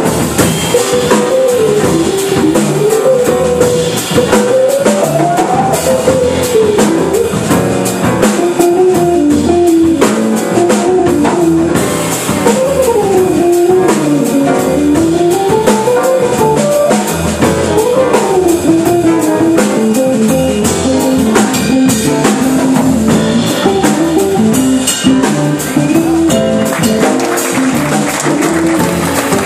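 Live band music: a hollow-body archtop electric guitar played over a drum kit, with a winding melodic line that rises and falls.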